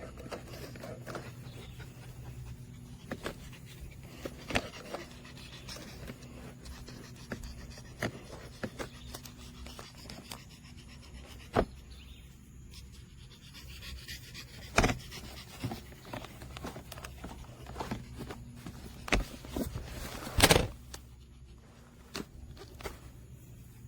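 LiTHELi 40V brushless cordless self-propelled lawn mower running with a steady low electric hum, with scattered clicks and knocks and a louder rustling burst about 20 seconds in.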